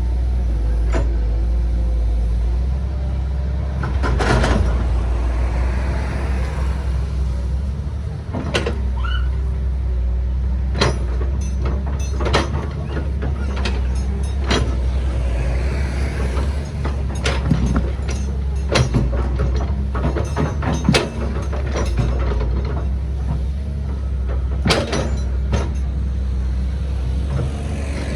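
Excavator digging limestone: a steady low engine drone, with sharp knocks and clatter scattered throughout as rock is scooped and dumped.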